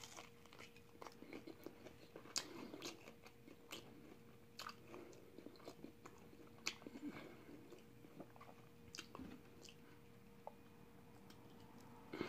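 Faint chewing of a fried chicken wing: scattered soft mouth clicks and smacks. A faint steady hum runs underneath.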